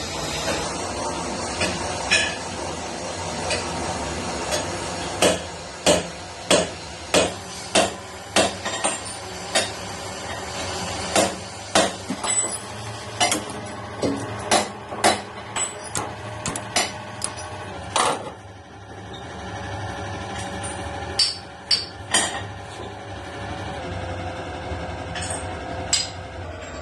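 A hammer tapping on metal parts in irregular runs of sharp, ringing strikes, about two a second at the busiest, with a pause and a few more strikes near the end. A steady workshop hum runs underneath.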